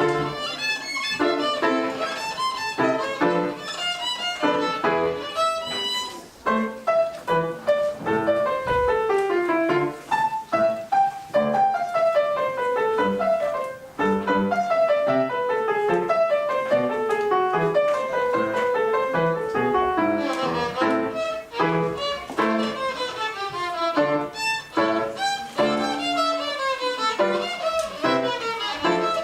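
Violins playing the first movement of a concerto for two violins: fast running lines of notes with long descending sequences.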